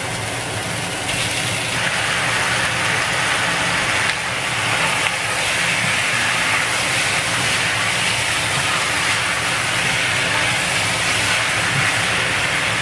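Raw chicken pieces sizzling in hot oil with frying onions in an enamelled cast-iron pot, a steady loud sizzle that swells about one to two seconds in as the chicken goes in and is stirred.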